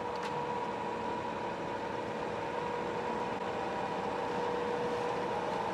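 Zbrojovka BK-5 external cylindrical grinder running: a steady machine hum from its motors and hydraulic drive, with a couple of held tones. A faint click comes shortly after the start, as a control on the panel is set.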